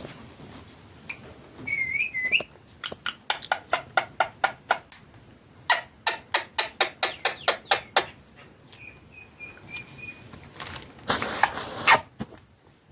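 Ring-necked parrot giving a few short chirps, between runs of sharp clicks at about five a second. Near the end there is a noisy rush lasting about a second.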